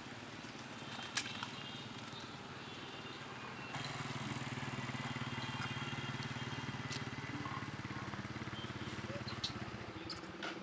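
Outdoor background with a steady low motor drone from about four seconds in, and a few faint sharp clicks.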